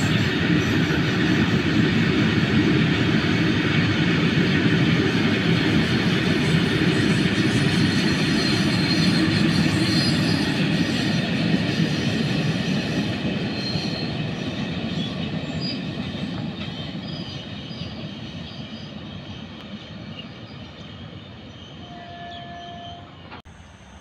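Long goods train of open box wagons rolling past, its wheels rumbling and clattering steadily on the rails. The noise fades away over the second half as the train draws off, and cuts off suddenly just before the end.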